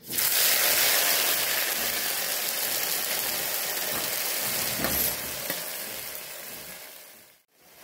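Green flower buds of a wild leafy green dropped into hot oil in a kadhai, sizzling loudly the moment they hit the oil and slowly dying down, then cutting off near the end.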